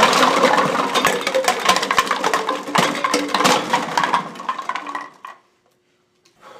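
Cans and bottles clinking and clattering in a metal school locker as they are rummaged through, a dense run of sharp knocks that stops abruptly about five seconds in, followed by a single click near the end.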